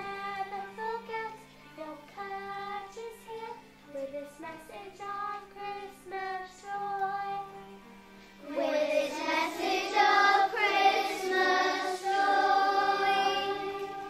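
A child singing a song solo over backing music, then a group of children joining in, louder, about eight seconds in.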